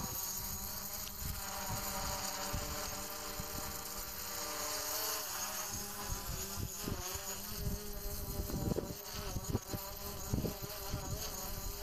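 DJI Mavic Pro quadcopter's propellers buzzing overhead, the pitch wavering up and down as the motors change speed, with low thumps on the microphone in the second half.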